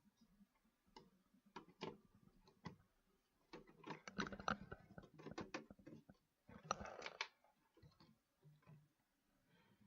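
Quiet, scattered clicks and small metallic rattles of screws being driven to fasten a computer motherboard into its case, busiest in two spells in the middle.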